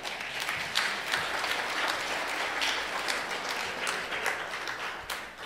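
A crowd applauding, a dense clatter of many hands clapping that fades out near the end.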